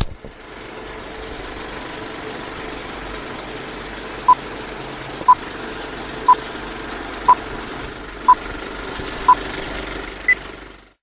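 Steady noisy hum and hiss, opened by a sharp click. Six short beeps sound one second apart, then a single higher-pitched beep, like a countdown, as the intro before the song begins.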